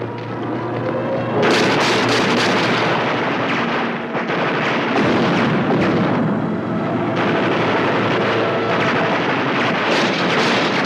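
Battle sound effects of gunfire and explosions aimed at an attacking fighter plane. They start suddenly about a second and a half in and keep going as a loud, continuous barrage of shots and blasts.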